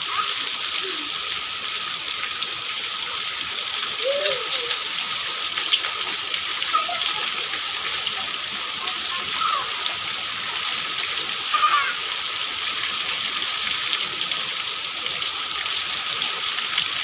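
Steady rain falling as a dense, even hiss, with a few brief, faint children's calls now and then.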